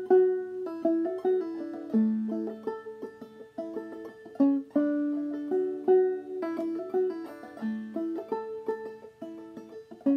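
Five-string banjo played clawhammer style in double D tuning (aDADE): a continuous run of plucked melody notes through a phrase of an old-time D tune.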